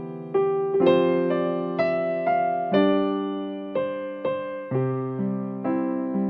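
Background music: electric piano playing slow sustained chords, a new chord struck roughly every half to one second and fading between strikes.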